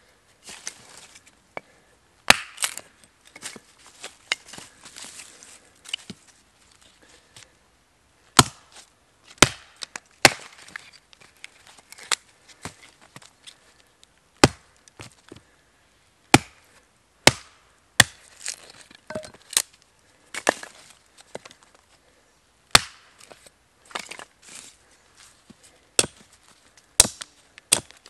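A wooden-handled hatchet chopping and splitting a small piece of wood on a stump chopping block: sharp, irregular strikes about every second or two, with quieter cracking and splintering between them.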